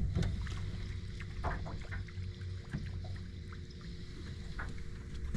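Small fishing boat on the water: a steady low rumble with a faint steady hum, and a few light knocks and clicks.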